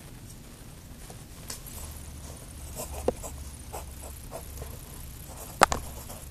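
Yellow wooden pencil scratching on lined paper in short strokes, with a few light taps and a sharp click about two-thirds of the way through, the loudest sound here.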